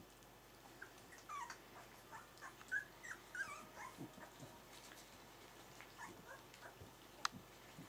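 Three-week-old Pyrenean Shepherd puppies making short, high squeaks and small whimpers as they tussle, mostly in the first few seconds, with a single sharp click near the end.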